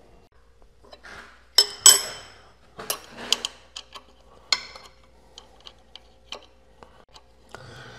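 Metal clinks, taps and knocks as a diamond wheel dresser and its holder are positioned and clamped on a tool and cutter grinder. The loudest are two sharp ringing clinks just before two seconds in, with lighter ticks scattered through the rest.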